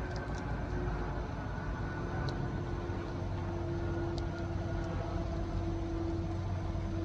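New Jersey Transit train approaching in the distance: a steady low rumble with a humming tone that grows stronger from about three seconds in.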